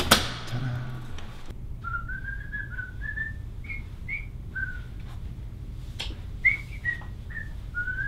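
A person whistling a tune in short notes that step up and down, starting about two seconds in, after a sharp click at the very start and low music that stops about a second and a half in.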